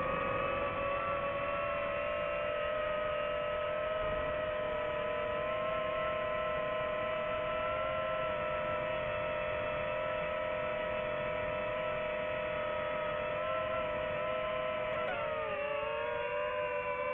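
DJI FPV drone's motors and propellers whining steadily, heard close up from the drone itself as a hum of several held pitches. About fifteen seconds in, the pitch dips and wavers.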